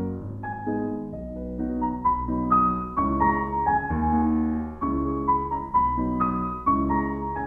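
Background music: a piano-led instrumental, with chords and a melody changing about once a second.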